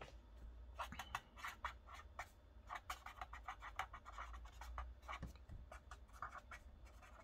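Felt-tip pen writing on paper: a faint run of short, quick scratching strokes.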